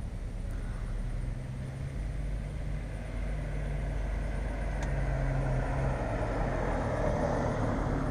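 A vehicle's motor running steadily, with a rushing noise that grows louder over the last few seconds.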